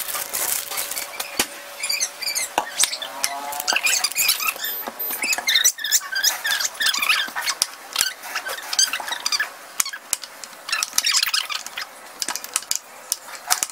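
A hand mixing and squeezing whole wheat flour into wet chapati dough in a glass bowl. It makes irregular sticky squelches and squeaks, with scattered light taps against the glass.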